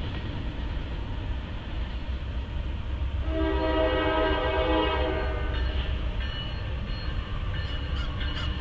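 A locomotive air horn sounds one blast of about two seconds, several notes together, from a train not yet in sight, over a steady low rumble.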